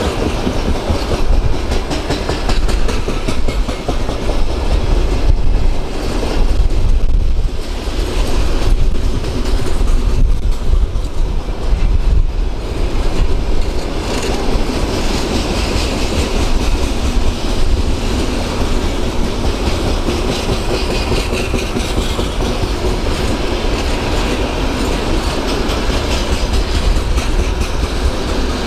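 Train wagons rolling past, wheels clattering steadily over the rail joints over a continuous rumble.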